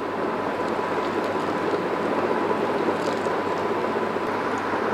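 Blended watermelon and phalsa juice being poured into a metal mesh strainer over a bowl: a steady pouring splash.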